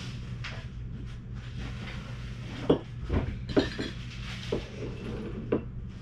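Glass soda bottles and plastic cups picked up and set down on a tabletop: a handful of knocks and clinks, the sharpest about two and a half seconds in, over a steady low hum.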